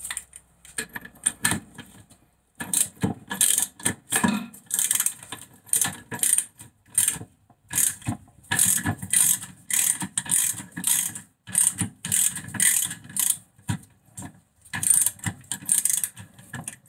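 Ratchet wrench clicking in short repeated runs as its handle is swung back and forth on the centre nut of a brake disc and hub.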